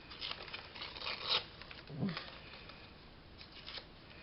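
Pieces of paper and card being handled and shifted about, a few short rustles and scrapes about a second apart.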